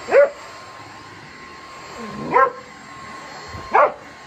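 A dog barks three times, a second or more apart, at a running stick vacuum cleaner. Under the barks, the vacuum's motor runs with a steady hum and a thin high whine.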